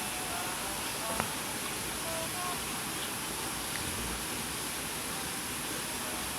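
Campfire with a single sharp crackle about a second in, over a steady rushing hiss.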